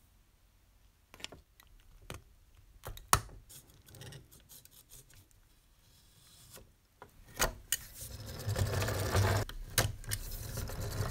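Sheet-metal parts of a tinplate model steam locomotive handled and fitted together: scattered light clicks and knocks, then from about eight seconds in a louder, continuous scraping and rubbing as the body shell is worked onto the chassis.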